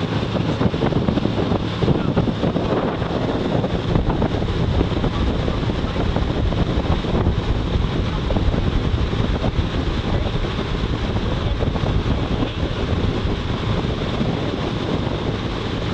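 Wind buffeting the microphone over the steady drone of a pontoon boat's motor running at cruising speed, with water rushing past the hull.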